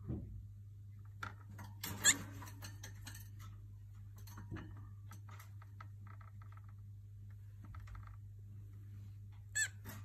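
Cockatiel giving short squeaky chirps: a loud one about two seconds in, softer chatter in the middle and another loud chirp near the end, among small rustles and clicks.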